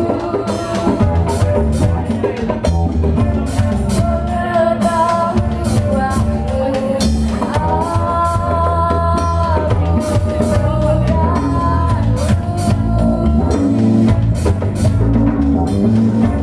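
Live band music: a woman singing a melody over bass guitar, guitar, drum kit and a hand drum.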